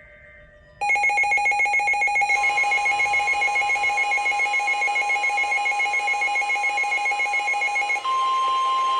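A weather radio receiver's alarm sounds: a rapid pulsing two-tone beep starts about a second in. Beneath it a steady alert tone comes in, which is the NOAA Weather Radio 1050 Hz warning alarm tone. Near the end the pulsing stops and the steady tone carries on alone, heralding a severe thunderstorm warning broadcast.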